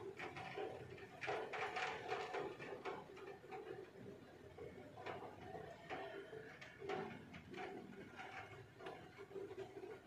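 Rain falling outside a window, heard from indoors: irregular drops tapping, several a second, at a faint level.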